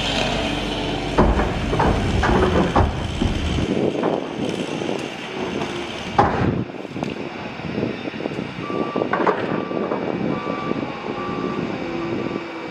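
Several heavy knocks and thumps over a low rumble, the loudest about six seconds in, typical of cut tree sections landing during a tree removal. From about nine seconds a vehicle's reversing alarm beeps at a steady pace.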